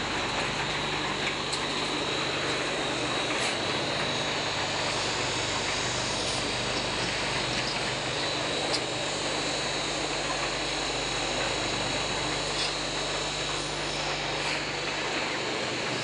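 Paver-block making machinery running steadily, driven by electric motors: an even hum with a high whine on top, and a few light ticks.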